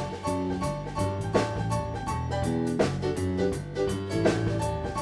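Background music with a steady drum beat under a melody of short pitched notes.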